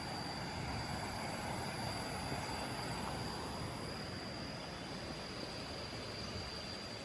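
Steady countryside ambience: an even rushing noise with a thin, constant high-pitched insect drone over it.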